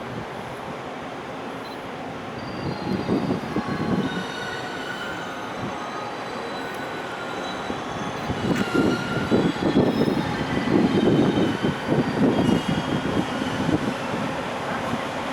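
A freight train, an EF510 electric locomotive hauling container wagons, pulling out of the station. The wheels rumble and knock over the rails with intermittent thin high squeals, and it gets louder from about eight seconds in.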